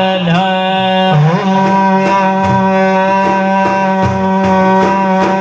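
Arabic devotional song: a male voice sings a short wavering ornament, then holds one long steady note.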